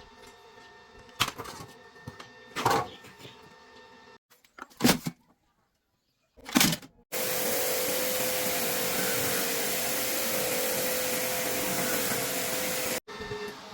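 A motor-driven machine running with a loud, steady rush of air and a steady hum, starting about seven seconds in and cutting off abruptly about six seconds later. Before it come a few short, loud knocks.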